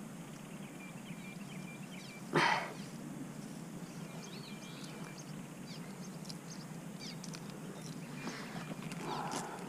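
Faint bird chirps over steady outdoor background noise, with one short, loud rustle about two and a half seconds in.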